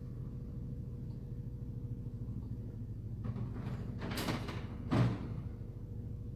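Steady low hum, with a few brief rustling noises after about three seconds and a soft knock about five seconds in.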